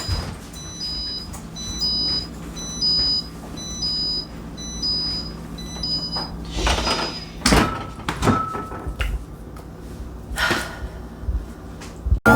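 Electronic beeper sounding short high beeps, about two a second, for around six seconds. Then a few louder knocks and rustles.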